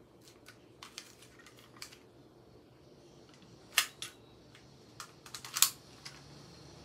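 Sharp clicks and clacks of an airsoft M1911 compact replica pistol being handled during a reload. A few light clicks come first, then two loud clacks a little under four seconds in and a quick cluster of loud clacks about five and a half seconds in.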